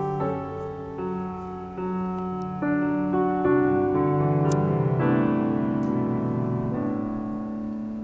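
Slow piano music: held chords and single notes that swell in the middle and ease off toward the end.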